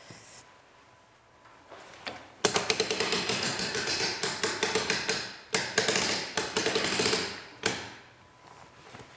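Music box being wound by its spring key: rapid ratcheting clicks in two spells, about three seconds and then two, with one last click near the end.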